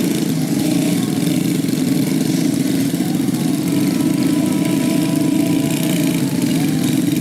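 Several small motorcycle engines running at once, their pitch rising and falling as the riders work the throttle, pulling bikes loaded with heavy sacks of rice grain through mud.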